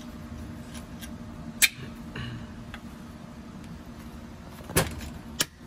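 Metal ticks and clicks of a long hex key working in the front screws of a CPS TRS21's crankcase as they are unscrewed: a few sharp, separate ticks, the loudest about a second and a half in and again near five seconds, over a steady low hum.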